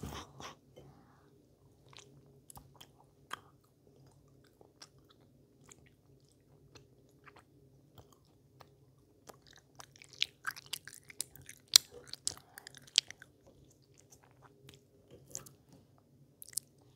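A child chewing gummy worm sweets close to the microphone: scattered small wet mouth clicks and smacks, thickest about ten to thirteen seconds in, over a faint steady hum.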